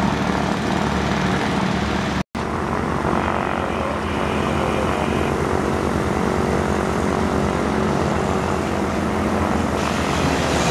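Steady aircraft noise, with low steady tones, cut by a brief total dropout a little over two seconds in.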